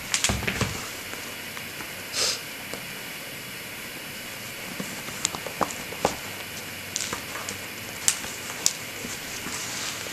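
Laces being pulled and tightened on a black hiking boot: scattered small clicks and a few short swishes over a steady hiss, with one clearer swish about two seconds in.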